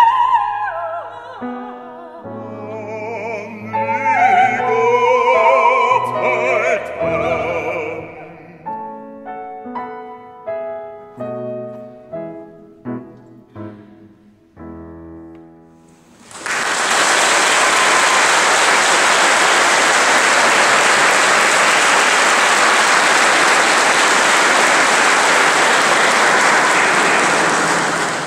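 A soprano sings with a wide vibrato over orchestral accompaniment, and the piece closes with a run of short, separate instrumental notes and chords. About 16 seconds in, the audience breaks into sustained applause that holds steady until near the end.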